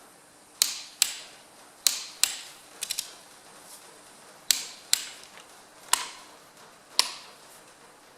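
Hand tools on the engine's connecting-rod cap nuts: about a dozen sharp metallic clicks and knocks at uneven intervals, some ringing briefly, with a quick triple about three seconds in.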